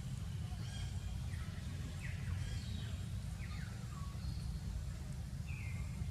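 A steady low rumble with faint, short, high chirping calls over it, each sliding down in pitch, about seven of them at irregular intervals.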